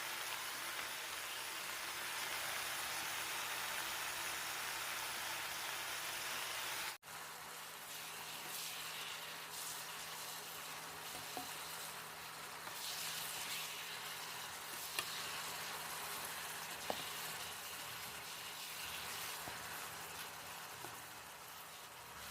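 Stir-fry of choy sum, king oyster mushrooms and minced pork sizzling in a pan, a steady frying hiss. It drops abruptly to a softer sizzle about a third of the way through, with a few light clicks.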